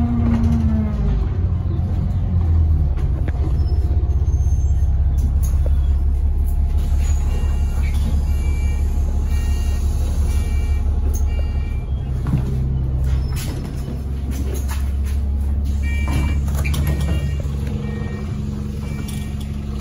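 Alexander Dennis Enviro 400 double-decker bus heard from inside, its engine idling with a steady low hum. Two runs of short, evenly repeated high beeps sound over it, the bus's door warning as the doors open and close at a stop.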